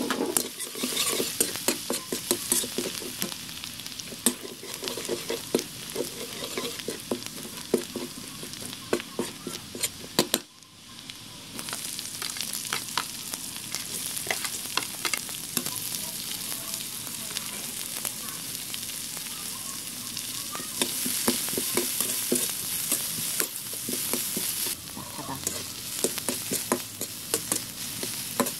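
Minced garlic, then diced vegetables, sizzling in hot oil in a wok, with a metal spatula scraping and clicking against the pan as they are stir-fried. The sizzle briefly drops away about ten seconds in, then comes back steady.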